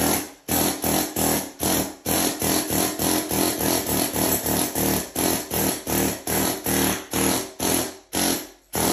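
Husky medium pneumatic air hammer with a chisel bit chipping concrete off a floor, hammering in short rapid bursts, about four a second, with one brief pause near the end.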